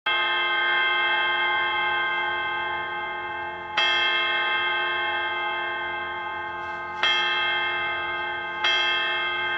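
A bell striking the twelve o'clock hour: four strokes, spaced unevenly with the last two closer together, each left to ring on and slowly fade.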